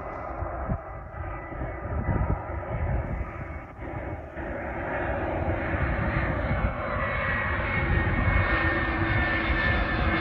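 Jet airliner's engines growing steadily louder as the aircraft approaches. A thin high whine comes in over the rumble in the second half.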